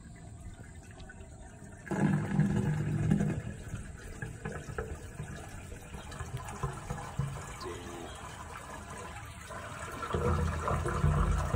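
Water sloshing and gurgling in a PVC sewer cleanout pipe, sounding hollow inside the pipe, louder about two seconds in and again near the end. The sewer line holds several inches of standing water.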